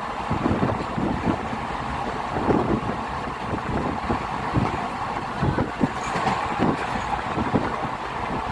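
Passenger train running along the track: a steady rumble with frequent, irregular low knocks from the wheels.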